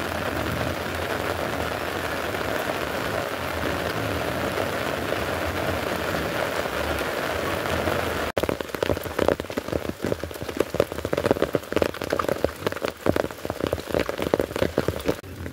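Steady rain hiss. About halfway through, at a cut, it changes to a dense, uneven patter of close taps.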